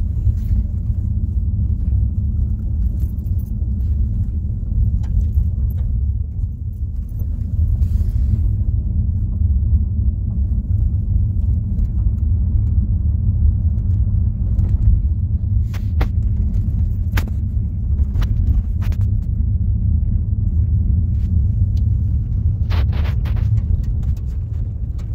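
Steady low road rumble heard inside a car driving on an unpaved gravel road, with a few sharp clicks in the latter half.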